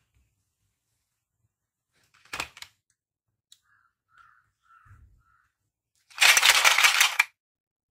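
Hard plastic being handled: a sharp clack of the basket's plastic handles, a few faint light taps, then about a second of loud clattering rattle near the end as the plastic toy fruits and vegetables jostle in the plastic basket.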